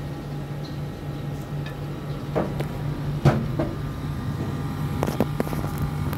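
Panasonic split air conditioner's outdoor unit running with a steady low hum, its compressor working on R22 refrigerant. A few sharp knocks and clicks of handling come over it, the loudest a little past the middle and a short run of clicks near the end.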